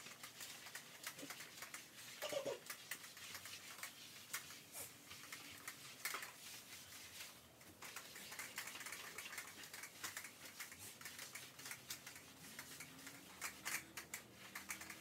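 Faint, irregular light clicking and clattering of household items being handled.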